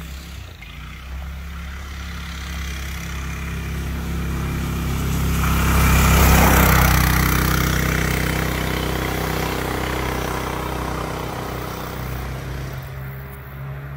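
Go-kart's 440 single-cylinder engine running under throttle as the kart drives past, growing louder to a peak about six seconds in and then fading as it moves away.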